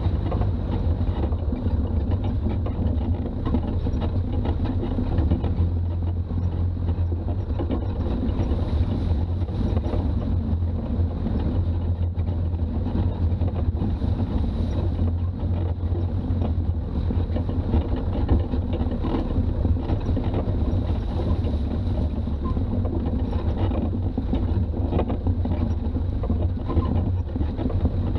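Toyota BJ40 4x4 on the move: a steady low engine and road rumble at an even speed.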